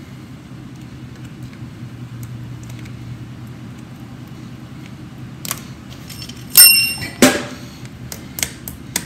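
Hand tools working a cotter pin into the castle nut on a forklift wheel hub: a few sharp metal clicks, then a loud ringing metal clank about two-thirds through, a second knock just after, and quick light clicks near the end, over a steady low background hum.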